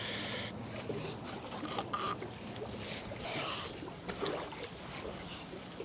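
Low steady hum of a motorboat engine, strongest in the first second, over water sloshing with a few light knocks.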